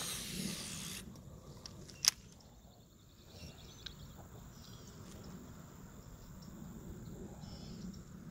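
A fishing cast: a whoosh with line hissing off the reel for about the first second, then one sharp click about two seconds in. Faint rubbing and ticking of the reel follow as a topwater frog lure is worked back across the pond.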